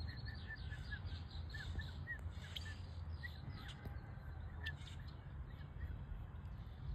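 A bird chirping repeatedly in short high notes, several in quick succession and thinning out after about five seconds, over a steady low background rumble.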